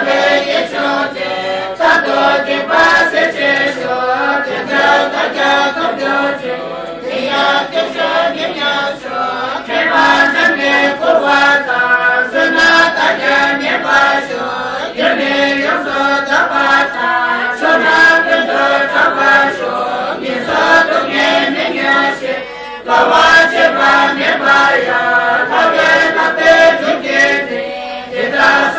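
A congregation of men and women chanting Tibetan prayers together from prayer texts, a continuous group recitation.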